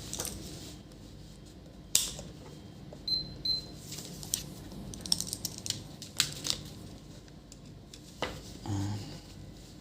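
Scattered small clicks and taps from handling test gear on a repair bench, with two short high beeps a little after three seconds in and a brief low buzz near the end.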